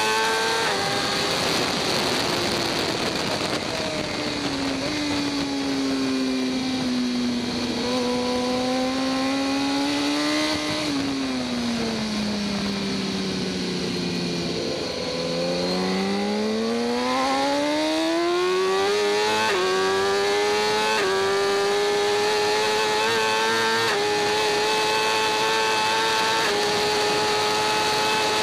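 2014 BMW S1000RR superbike's inline-four engine heard onboard at racing speed, with wind rush. The engine note falls as the bike slows, is lowest about halfway through, then climbs hard under acceleration and levels off in steps over the last third.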